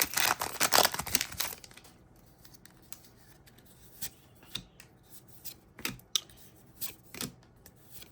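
Trading card booster pack wrapper crinkling and tearing open, then a string of soft separate flicks as the cards are handled one by one.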